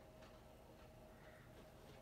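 Near silence: faint room tone with a steady low hum and a few faint ticks.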